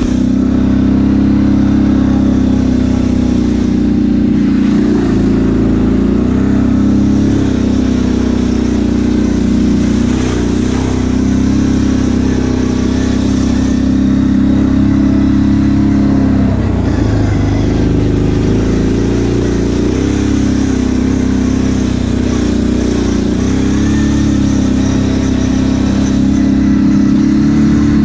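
ATV engine running steadily under way, its pitch dipping briefly about two-thirds of the way through as the throttle eases off, then picking back up.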